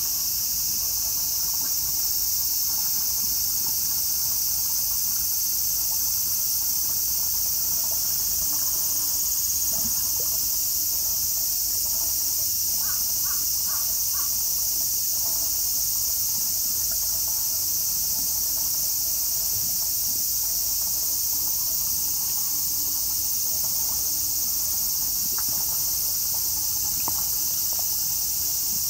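Steady, high-pitched drone of summer cicadas, with a quick run of about four short calls about halfway through.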